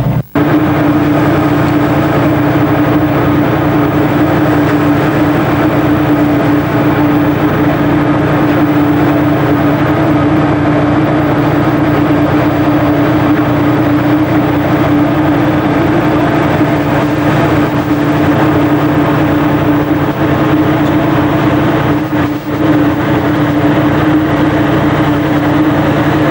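Steady engine drone, even in pitch, with a brief dip about three-quarters of the way through.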